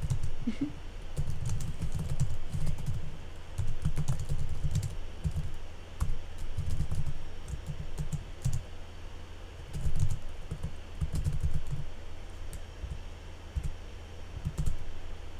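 Typing on a computer keyboard in short bursts of quick keystrokes, with pauses between them.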